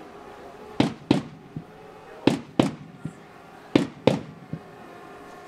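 Massed war-cry beats: three rounds about a second and a half apart, each two loud, sharp strikes in quick succession followed by a lighter one, over a faint steady held note.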